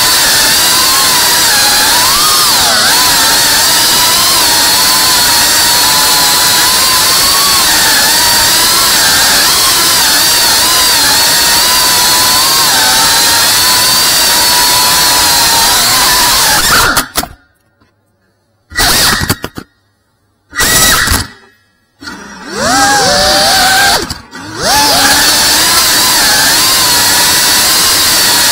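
FPV racing quadcopter's brushless motors and propellers whining at high speed, the pitch wavering up and down with the throttle. About two-thirds of the way through, the sound cuts out suddenly several times for a second or so and comes back.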